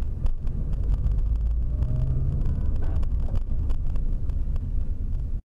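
Cabin noise of a moving car heard through a dash camera's microphone: a steady low road and engine rumble with scattered short clicks and knocks. It cuts off suddenly near the end.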